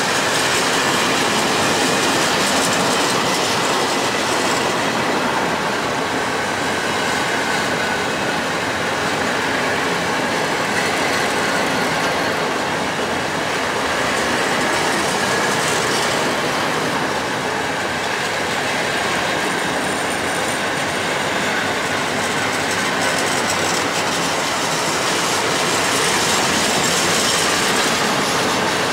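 A long freight train of pear-shaped powder hopper wagons rolling steadily past, the wheels clattering over the rails with a thin steady squeal.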